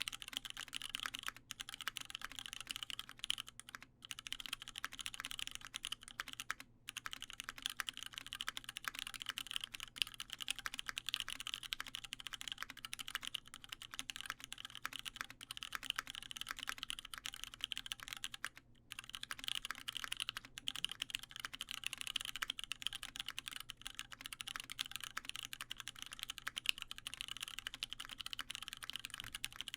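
Fast, continuous typing on a LifeZ CLS mechanical keyboard with lubed Cherry MX Brown switches in an aluminium plate and CRP Tulip keycaps: a steady stream of key clacks, with brief pauses about seven and nineteen seconds in.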